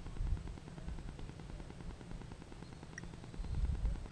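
Low rumble of wind buffeting the microphone, with stronger gusts about a third of a second in and near the end.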